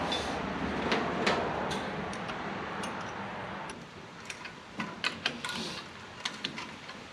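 Hand tools clicking and tapping on metal as wrenches work the hold-down nuts of a four-barrel carburetor. A steady rushing noise comes first, and the sharp irregular clicks follow from about halfway on.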